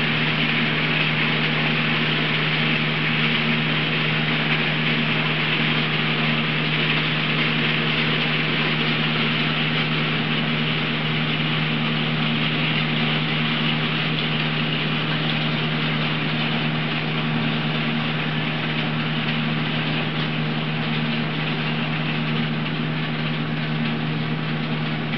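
Small electric motor humming steadily, with an even hiss over it and no change in pitch or loudness.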